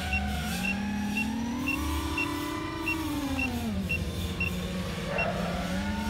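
FPV racing quadcopter's brushless motors and propellers whining as recorded by the onboard camera. The pitch climbs as the throttle is pushed, holds briefly and falls back to a lower steady whine. A short high beep repeats about twice a second over it and stops near the end.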